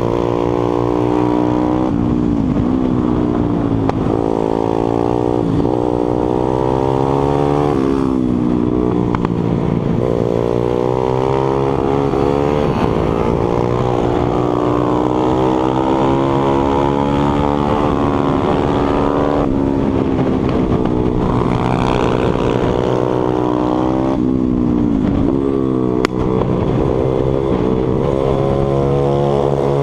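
Onboard sound of a Stomp 140 pit bike's single-cylinder four-stroke engine at racing pace, rising in pitch through the gears and dropping back again for corners over and over. One sharp click comes near the end.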